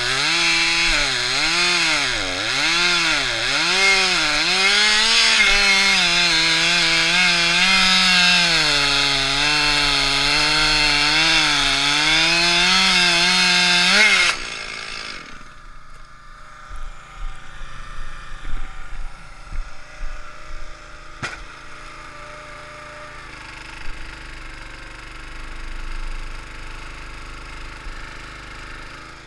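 Stihl MS261 two-stroke chainsaw cutting through an oak log, its engine speed dipping and recovering again and again under load. About halfway through the saw's sound cuts off suddenly, leaving quieter scattered knocks.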